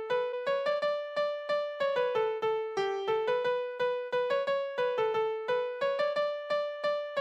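Background music: a bright keyboard melody of quick, evenly paced notes, each note struck and fading.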